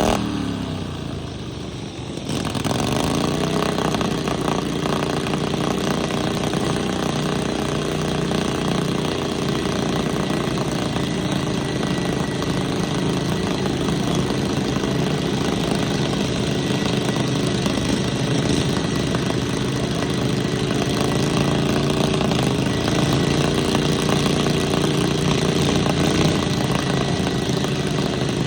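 Small lawn mower engines running. Near the start the engine note drops away, then picks back up and runs steadily.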